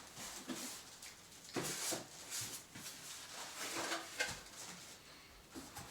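Hands handling unboxed vacuum parts and packaging: scattered rustles with a few light knocks, the two largest rustles about two and four seconds in.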